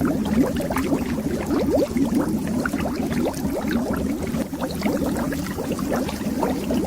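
Bubbles rising and popping underwater: a dense stream of many short, upward-gliding bloops over a steady low rumble.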